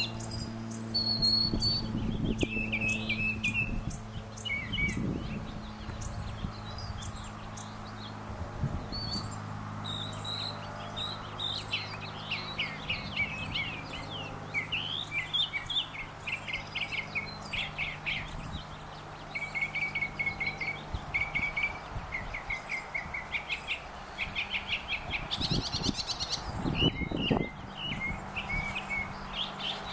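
Northern mockingbird singing: a long run of varied chirped phrases, many repeated several times in quick succession, over a steady low hum.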